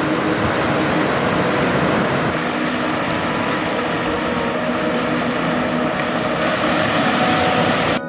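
Sea water rushing and washing over a rocky, seaweed-covered shore, a steady loud rush of surf with wind. Faint music plays underneath.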